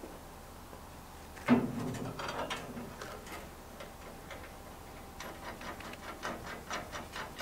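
A steel formwork bracket clanks once against the steel upright about a second and a half in, then a hand ratchet clicks quickly, about four clicks a second, tightening the single bolt that joins the kicker bracket to the type D bracket.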